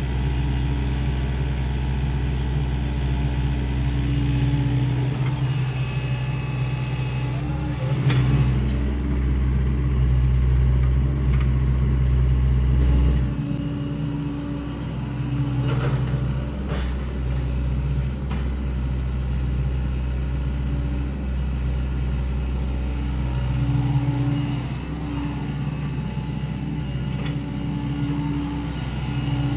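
Sany SY75 excavator's diesel engine running steadily, its note swelling and easing several times as the hydraulics take load, with a few short knocks.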